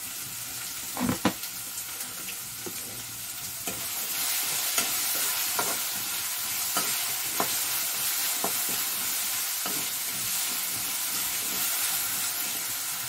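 Potatoes frying in oil in a steel kadai, a steady sizzle that grows louder about four seconds in, with a metal ladle stirring and clinking against the pan every second or so. A couple of louder knocks come about a second in.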